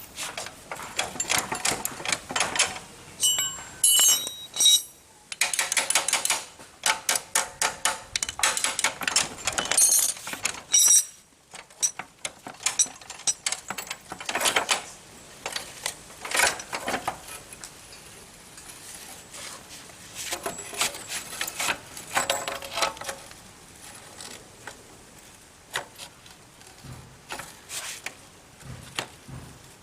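Metal hand tools and engine parts clinking and knocking in an irregular run of sharp taps and clatter, with a few brief metallic rings, as the engine is worked on by hand.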